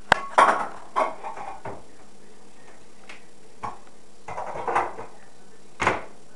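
Scattered clinks and clatters, like dishes knocking together, coming in small clusters with short ringing. One is sharp near the start and one near the end.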